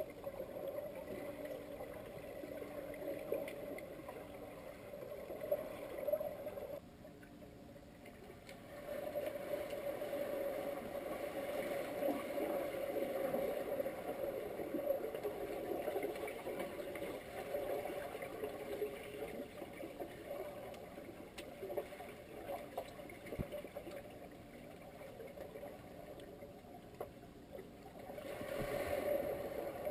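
Muffled underwater sound in a swimming pool: swimmers with fins churning the water and bubbling, over a steady hum. It goes quieter for about two seconds around seven seconds in.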